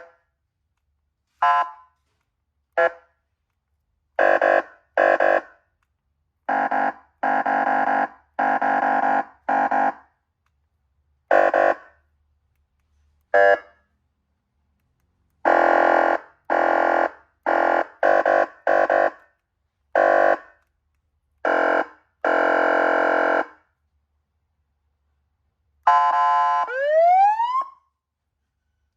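A 300-watt police patrol siren keyed from a wireless remote, sounding a steady-pitched horn tone in short blasts. Some blasts are single and some come in quick runs, with silences between them. Near the end the tone sweeps upward in a rising wail.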